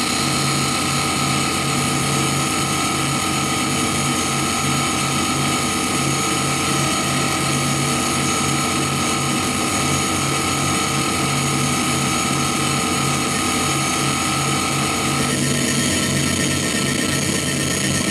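Harsh electronic noise music: a loud, unbroken wall of static with a low, stuttering pulse underneath and several steady high tones through it. About fifteen seconds in, one mid-pitched tone drops out.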